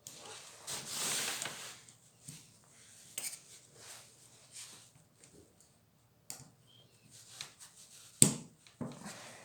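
Metal clicks and scraping as an Allen key works the scope-mount screws of an air rifle: a scratchy rubbing about a second in, scattered light clicks, and one sharp metallic clack near the end.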